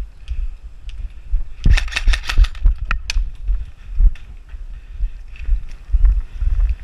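Airsoft gunfire: a rapid burst of about eight shots nearly two seconds in, then a few single shots, over repeated low thumping of movement against a head-mounted camera's microphone.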